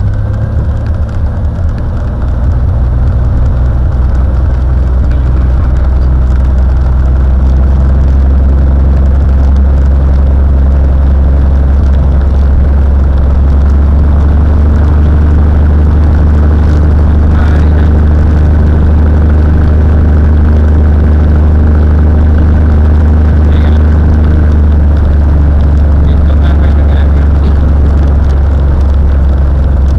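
Cessna 182's piston engine and propeller running steadily with a constant low drone, growing slightly louder over the first two or three seconds.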